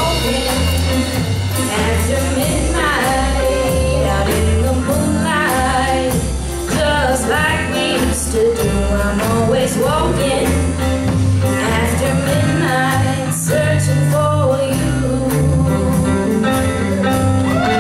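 Live country band playing a walking-tempo song, with acoustic guitar, a stepping bass line and drums, and a female voice singing the melody.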